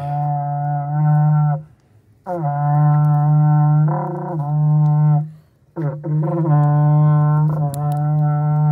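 Berrante, the Brazilian cattle-calling horn, blown in three long held notes at a steady pitch, with short breaks between them.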